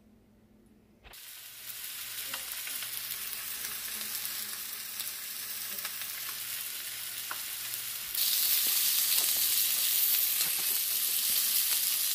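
Sausage patties frying in a pan: a steady sizzle that starts about a second in and jumps suddenly louder about eight seconds in.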